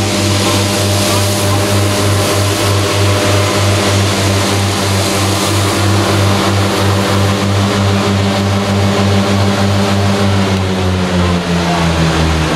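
Deutz-Fahr tractor engine running at steady high revs while driving Krone disc mowers, with a whirring rush over the top. About ten seconds in, the engine revs drop and the pitch falls.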